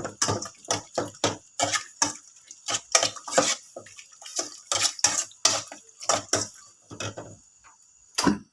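Spoon clinking and scraping against a bowl as sliced grilled pork is stirred to bring out its juices: a quick, irregular run of knocks that stops a second before the end, with one last knock at the very end.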